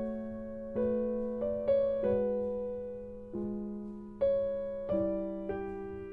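Slow solo piano music, notes and chords struck about once a second, each left to ring and fade before the next.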